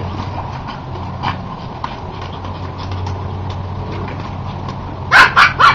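Dog giving three short, loud barks in quick succession near the end, over a steady low hum.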